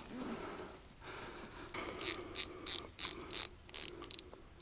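Ratcheting mechanical clicks in a run of short bursts, about three a second, starting a little before halfway in.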